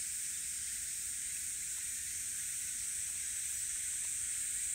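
A chorus of cicadas buzzing as one steady, high-pitched hiss.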